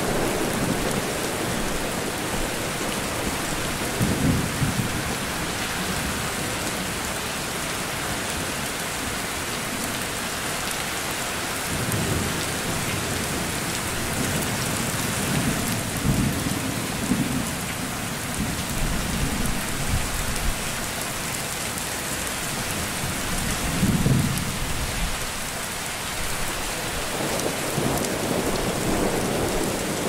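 Steady rain falling, with low rolls of thunder rumbling several times: about four seconds in, again over a stretch in the middle, once near twenty-four seconds and near the end.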